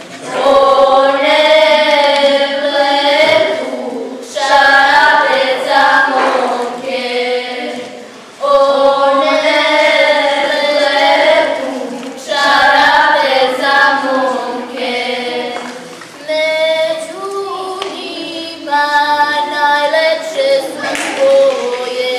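Group of voices singing a Serbian folk song together in long held phrases of a few seconds each, with brief breath pauses between lines.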